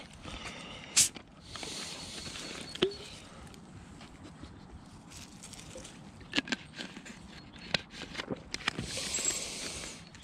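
Footsteps and rustling with scattered sharp clicks and knocks; the loudest, a single sharp knock, comes about a second in.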